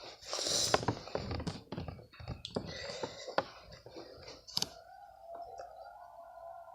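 Handling noise: a quick run of small clicks and rustles as objects are moved about, giving way about four and a half seconds in to a faint steady hum with an occasional click.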